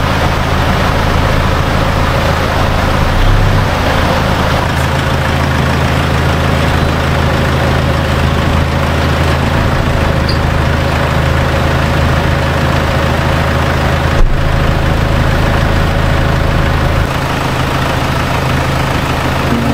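A four-wheel-drive vehicle's engine running steadily with a low hum. Its note shifts slightly about three seconds in and again near the end.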